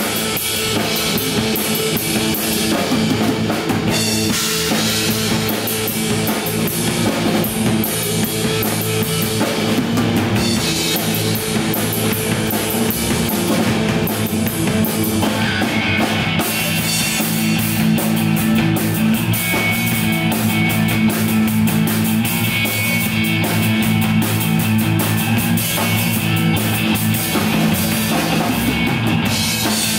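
Live rock band playing without vocals: a drum kit keeps a dense beat under sustained electric bass and electric guitar. The guitar sound turns brighter about halfway through.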